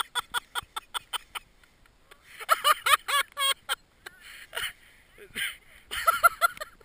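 A person laughing hard close to the microphone, in bouts of quick ha-ha-ha pulses, breaking off and starting again about every second and a half.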